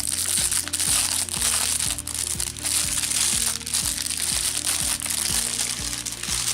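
Plastic packaging bag crinkling and crackling as it is handled and opened, over background music with a steady thumping beat.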